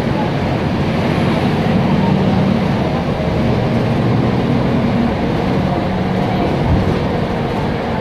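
Mercedes-Benz OF-1724 city bus's OM 926 LA six-cylinder inline diesel engine running under way, heard from inside the bus as a steady low hum.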